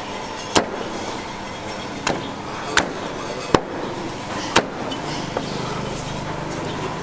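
Meat cleaver chopping cooked meat on a thick wooden chopping block: five sharp strikes, irregularly spaced about a second apart, then a lighter one.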